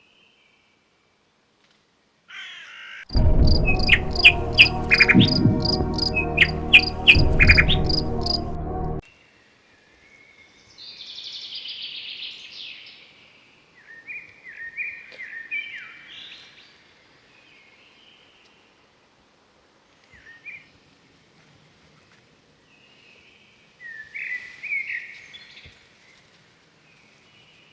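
About six seconds of music with a regular ticking beat, starting about three seconds in and cutting off sharply. Then birds call in short, scattered chirping phrases.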